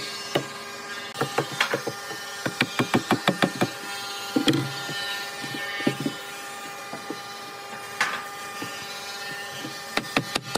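Mallet tapping on a wooden chair frame to drive its joints home: runs of quick knocks, up to about eight a second, between single blows.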